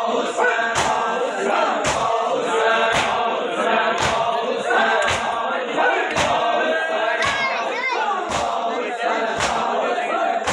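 Crowd of male mourners chanting a noha (Shia mourning elegy) together. A heavy chest-beating thump of matam lands in time with the chant about once a second.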